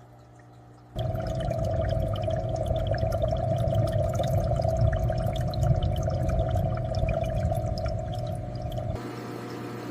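Aquarium water bubbling and splashing, dense with small pops and drips. It cuts in suddenly about a second in over a faint low hum, and drops abruptly to a quieter trickle near the end.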